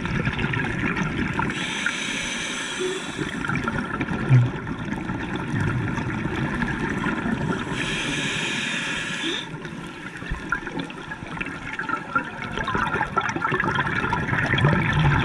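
Scuba regulator breathing underwater: two hissing inhalations, each about a second and a half long and about six seconds apart, with gurgling, bubbling exhaled air between them.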